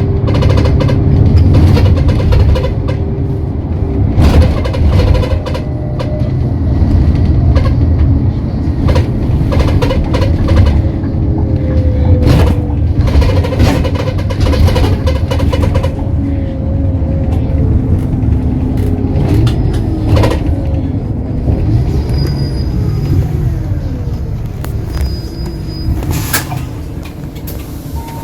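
Motor coach heard from inside the passenger cabin while driving: a deep steady rumble from engine and road, with engine and drivetrain whine that drifts and falls in pitch past the middle. Scattered knocks and rattles sound from the coach.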